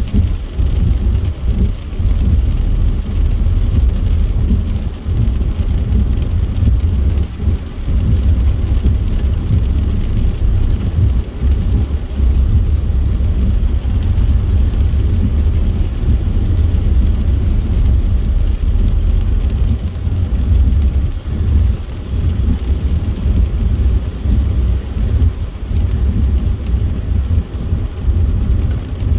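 Car driving at motorway speed in heavy rain, heard from inside: a steady deep rumble of tyres on the wet road, with the hiss of rain and spray against the car.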